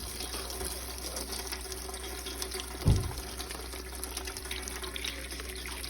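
Water spraying from a flushing wand into a Suburban RV water heater tank and pouring out of the drain opening, washing out lime scale; a steady rush of water. A single low thump about three seconds in.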